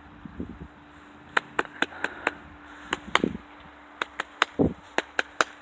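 An irregular run of about a dozen sharp clicks over faint outdoor background, bunched mostly in the second half.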